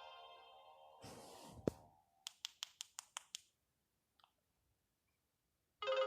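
Nokia 1600 mobile phone: a ringtone fades out, then a brief handling rustle ends in a sharp click. About six quick keypad clicks follow, then near silence, and a new ringtone starts loudly from the phone's speaker near the end.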